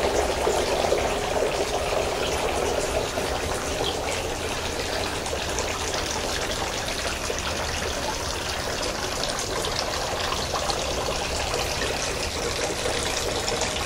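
Water running steadily, an even trickling noise with no breaks.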